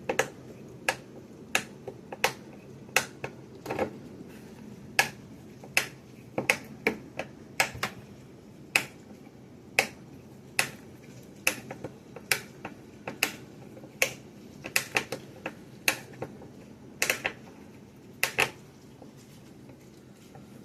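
A wood screw being driven into wood by hand with the file tip of a Gerber Dime multi-tool: a series of sharp clicks and creaks, roughly one a second and sometimes in quick pairs, as each twist turns the screw.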